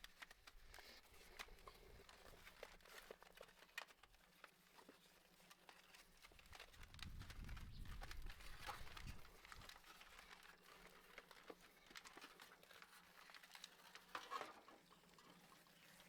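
Faint, scattered small clicks and crackles, with a low rumble for a couple of seconds in the middle and a brief louder rustle near the end.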